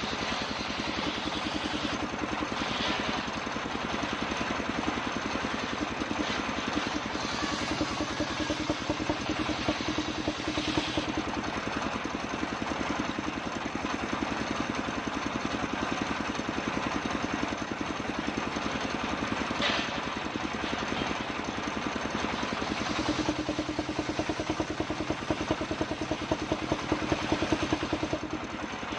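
Circular saw machine running as it cuts kapok wood, a steady pulsing engine-like drone. It swells louder twice, about a third of the way in and again near the end.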